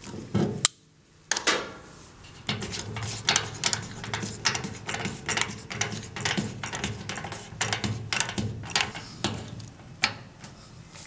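REMS Unimat 75 threading machine running: a steady low motor hum with a sharp click just under a second in, then a run of clicks and knocks at about two to three a second.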